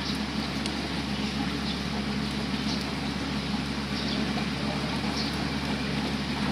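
Komatsu excavator's diesel engine running steadily.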